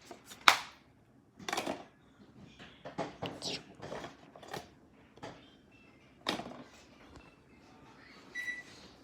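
A series of sharp clicks and knocks from handling packaging and plastic parts during an unboxing, loudest about half a second in. A short electronic beep comes near the end.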